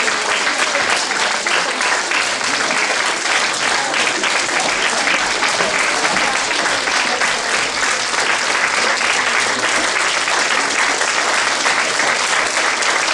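Audience applauding steadily, a dense and continuous clapping.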